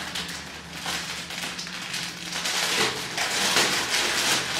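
Gift wrapping crinkling and rustling as a package is opened by hand, louder in the second half.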